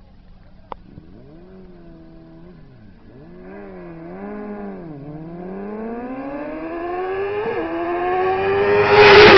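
Two sport motorcycles' engines blipped at the drag-race start line, then launching and accelerating flat out, the pitch climbing with one gear shift as they grow much louder. They pass close by near the end, the pitch dropping as they go past.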